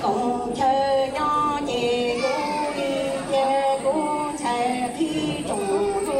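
A woman singing into a microphone over a PA system, a melody of long held notes stepping up and down in pitch.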